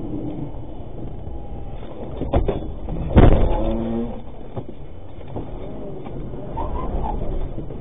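A vehicle running, with two sharp knocks about two seconds in and a loud sudden hit just after three seconds, followed by a brief pitched ring that fades.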